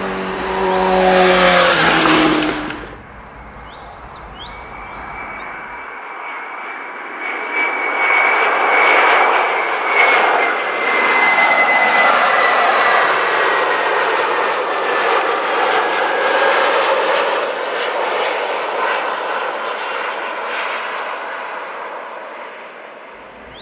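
A road vehicle passes close by in the first few seconds, its pitch dropping as it goes. Then a Germanwings Airbus A320 on final approach passes low overhead: a steady jet-engine roar with a high whine that sinks slowly in pitch, loudest about ten seconds in and fading near the end.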